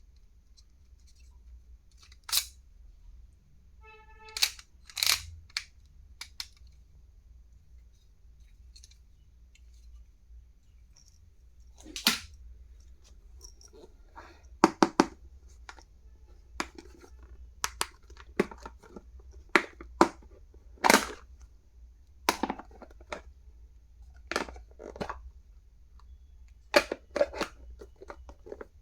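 Stationery items and their packaging being handled during unboxing: a dozen or so sharp, separate clicks and taps, with a brief squeak about four seconds in.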